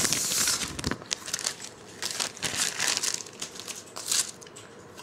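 Plastic pouch crinkling as it is handled and opened, in several irregular bursts, the loudest in the first second.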